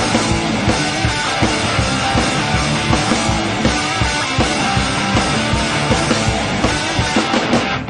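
Rock music with a steady drum-kit beat under a dense, loud band mix.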